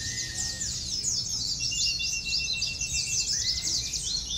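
Many caged pleci (white-eyes) singing at once, a dense, rapid, high twittering chorus that never stops, with a few long, level whistled notes mixed in.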